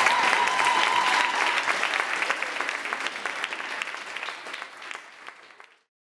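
A small audience clapping, with many hands striking, fading steadily away to silence shortly before the end.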